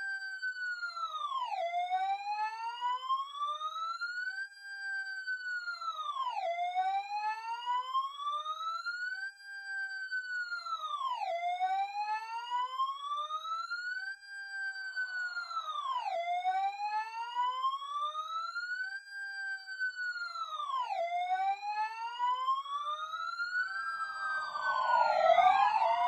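Fire engine siren wailing in a repeating cycle: the pitch climbs slowly for about three seconds, then drops quickly, about once every five seconds. Near the end a louder second sweep overlaps it, with a low rumble.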